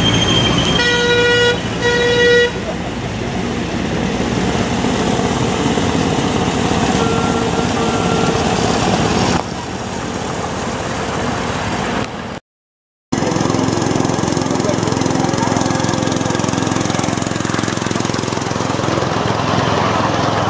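Miniature railway locomotive's horn giving two short toots about a second in, then a fainter toot around seven seconds in, over steady background noise.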